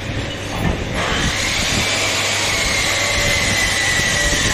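An electric motor starts up about a second in and runs with a hiss and a steady high whine whose pitch sags slightly, as if it is working under load.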